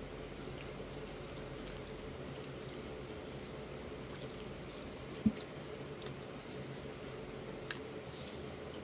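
Eating creamy shrimp fettuccine Alfredo: faint wet chewing and small mouth clicks over a steady hum, with one sharp knock about five seconds in.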